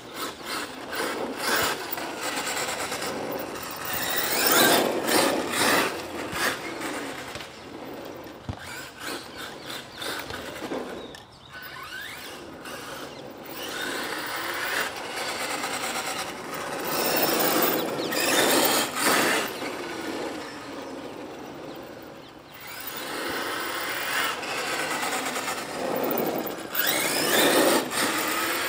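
Electric RC monster truck with a brushless motor driving back and forth, its motor whine and tyre noise swelling and fading as it speeds up and passes several times.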